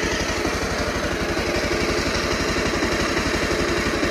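Bajaj Pulsar 150's single-cylinder four-stroke engine idling steadily with an even beat. The timing chain has just been re-timed, and the engine sounds smooth, with none of the earlier cut-cut-cut rattle from the timing chain.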